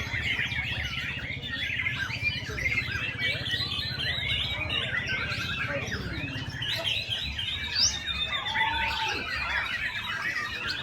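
A black-tailed white-rumped shama (murai ekor hitam) singing without pause: a dense, fast stream of chattering chirps and short whistled phrases, with one lower, drawn-out whistle near the end. It is a 'hot type' bird, singing in an excited, aggressive mode. A steady low hum runs underneath.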